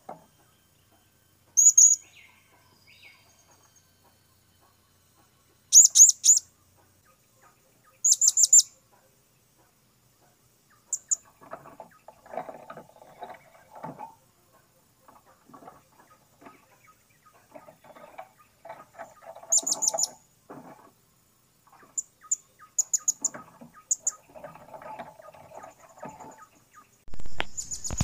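Blue-crowned hanging parrots calling: short bursts of shrill, high chirps, a few quick notes each, every few seconds. A loud rapid buzzing rattle starts near the end.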